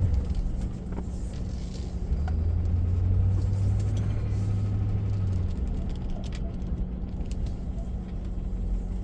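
Car interior noise while driving: a steady low engine and road rumble, with a deeper drone that swells from about two seconds in and drops away a little after five seconds.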